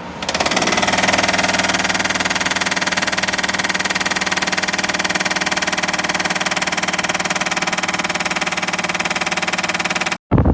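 Portable air conditioner running, a loud, steady buzzing hum that starts abruptly and cuts off suddenly near the end.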